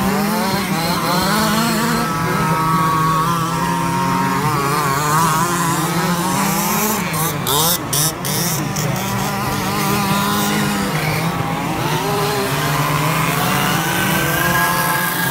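Several large-scale petrol RC cars racing together, their small two-stroke engines buzzing and revving up and down over one another.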